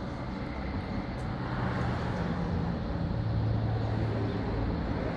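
Steady low rumble of road traffic, a little louder from about two to four seconds in, under the hum of an electric roller shutter's motor lowering the white aluminium shutter until it closes.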